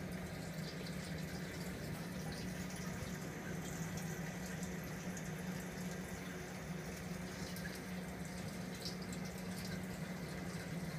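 Saltwater reef aquarium's water circulation running: a steady trickle and splash of moving water with a low steady hum underneath and scattered small drips.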